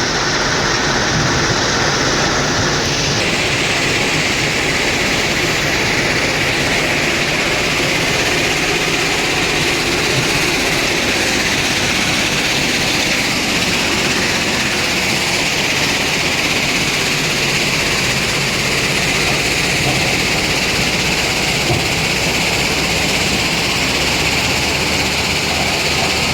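Heavy construction machinery running steadily with a dense, continuous mechanical din; the sound shifts slightly about three seconds in.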